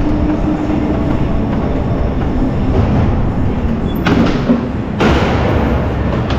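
Electric go-kart running on the track: a steady rumble with a faint motor hum, and two brief knocks about four and five seconds in.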